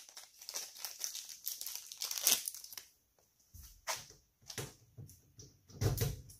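Plastic wrapping crinkling for the first three seconds, then a few clicks and low knocks as a key is worked in a steel tool chest's drawer lock and the top drawer is tugged.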